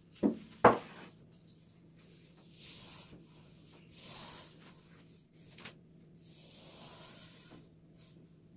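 Kitchen handling sounds: two sharp knocks near the start, like a utensil or dish set down, then three soft rubbing or rustling passes with a small click between them.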